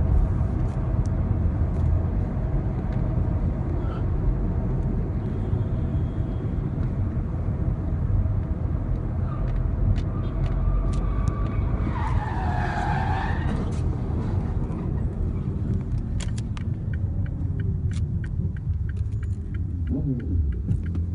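Road and engine noise heard from inside a moving car on a highway, a steady low rumble. About twelve seconds in, a short tyre screech bends in pitch, and in the last few seconds there is a scatter of sharp clicks.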